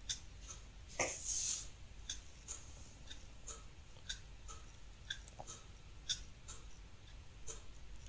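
Faint ticking of a clock, steady at about two ticks a second, with a short hiss about a second in.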